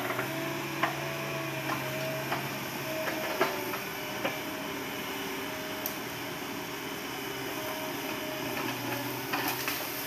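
Hitachi hydraulic excavator's diesel engine running steadily, with irregular clanks and knocks as it tracks forward over rough ground.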